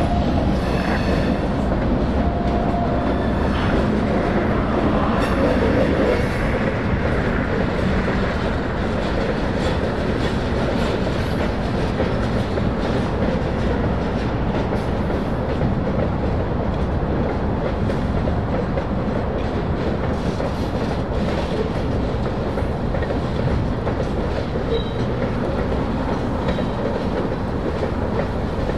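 Freight train rolling past, the steady noise of its steel wheels on the rails, with a brief high wheel squeal near the start.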